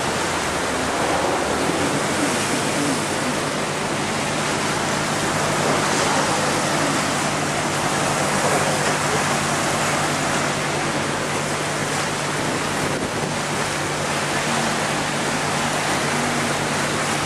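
Steady rush of water and wind aboard a moving motorboat, with the boat's engine droning low underneath; about a second and a half in the engine note changes and then holds steady.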